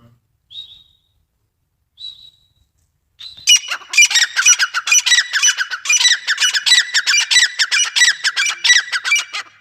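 Grey francolin (desi teetar) calling: two short, high notes, then from about three seconds in a loud, rapid run of repeated harsh notes, several a second.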